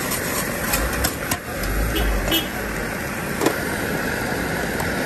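Metal spatula scraping and knocking against a large frying pan as egg bhurji is stirred, with a few sharp clicks over steady street noise.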